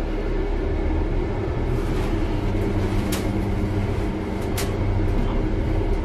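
Elevator running as the car rises, a steady low mechanical rumble and hum, with two short clicks about three and four and a half seconds in.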